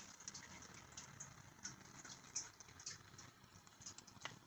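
Faint rustling and scattered light, irregular clicks from a jacket being handled up close.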